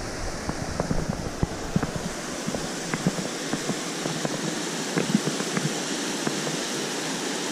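Shallow rocky stream rushing over small cascades: a steady rush of water, with scattered short clicks and knocks.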